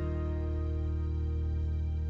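Background music: a held chord slowly fading, with no new notes struck.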